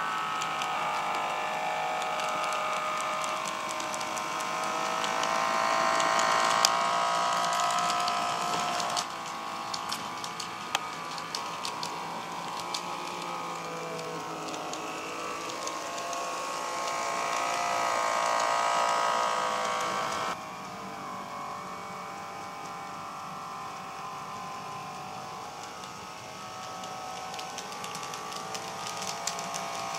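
N-scale KATO Rhaetian Railway ABe 8/12 'Allegra' model railcar running on PWM power: a steady whine from its small motor and drive that rises and falls in pitch with speed, with light clicks of the wheels on the track. The sound changes suddenly twice.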